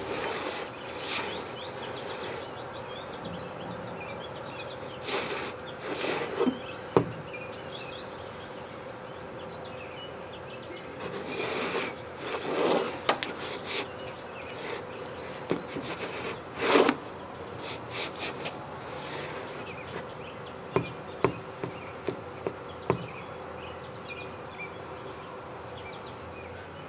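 A flying insect buzzing around, swelling louder a few times as it passes close. There are a few light knocks and scuffs of sneaker soles on wooden deck boards.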